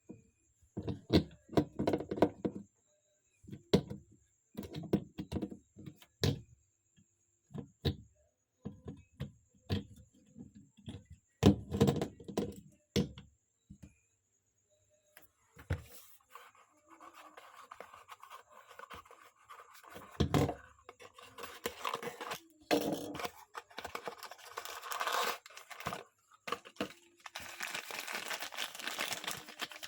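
Hands handling small cardboard toy boxes: a run of knocks and scrapes, then crinkling and tearing of packaging from about halfway through.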